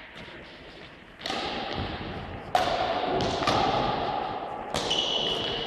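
Badminton rackets striking shuttlecocks: four sharp hits, roughly a second apart, starting about a second in, each ringing on in the echoing sports hall.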